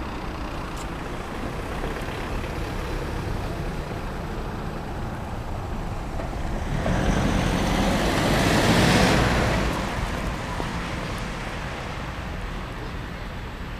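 Steady street traffic noise, with one vehicle passing close by, its tyre and engine noise building to a peak about nine seconds in and then fading.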